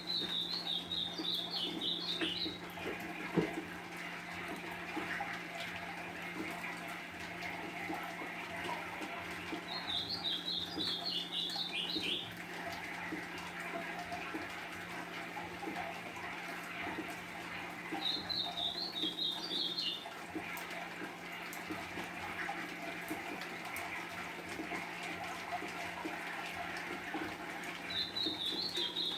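Golinha (white-throated seedeater) singing short, high warbled phrases about two seconds long, four times, several seconds apart, over a steady hiss of rain and a low hum.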